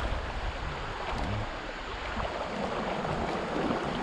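River current rushing and splashing around a wader's legs as he moves through the water.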